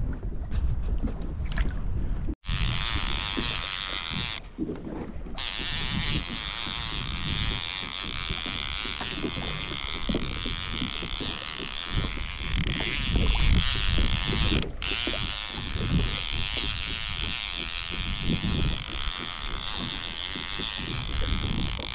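Wind buffeting the microphone over splashing, hissing water from a kayak moving on the sea. The sound cuts out abruptly for an instant a couple of seconds in and again past the middle.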